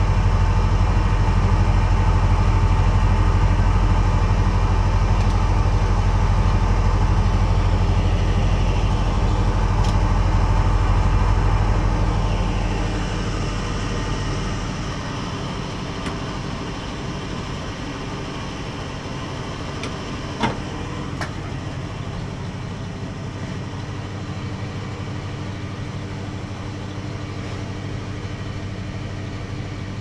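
Refrigeration unit of a POLAIR commercial refrigerated cabinet running: a steady low mechanical hum of the compressor and condenser fan, which falls to a quieter steady hum about halfway through. A single sharp click comes about two-thirds of the way through.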